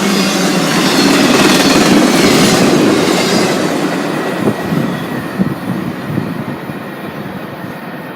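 Freight train cars rolling past on the rails with a steady wheel-and-rail rumble and a few sharp clacks, fading over the second half as the train moves away.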